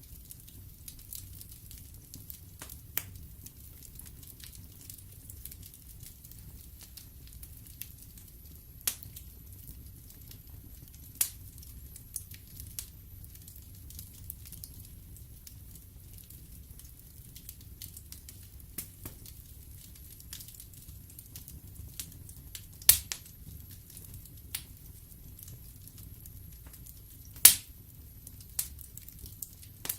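Wood fire burning in a fireplace, crackling: a low steady rumble under irregular sharp pops and snaps from the logs. The loudest pops come about three-quarters of the way through and again near the end.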